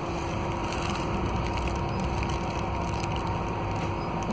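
Cabin sound of a Scania K320UA articulated city bus under way: a steady low drone from its five-cylinder DC09 diesel and driveline with a constant hum, and many light rattles and creaks from the body fittings.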